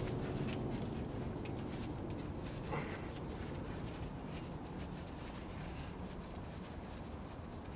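Gloved hands working the brake caliper and turning its guide-pin bolt in by hand: faint rubbing with scattered light metal clicks, one a little clearer about three seconds in.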